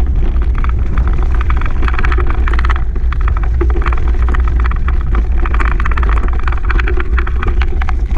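Steady low rumble of wind and vibration on a moving microphone, with dense irregular rattling and crunching of the trail as it moves fast behind a running dog.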